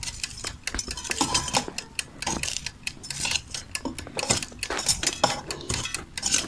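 Kitchen tongs clicking and scraping against the perforated air fryer basket in a quick, irregular series as breaded chicken fingers are turned over.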